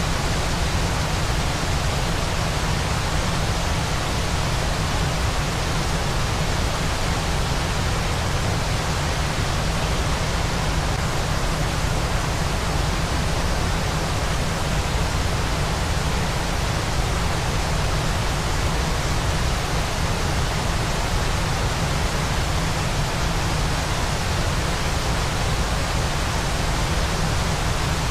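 Waterfall white noise: a steady, unchanging rushing hiss spread evenly across the range, with a heavier low rumble underneath.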